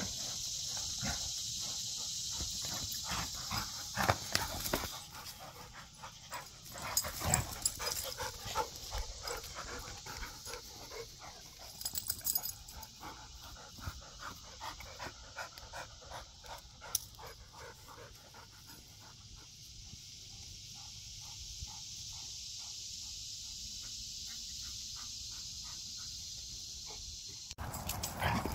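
A dog panting in quick, rhythmic breaths, with a steady high hiss for the first five seconds or so.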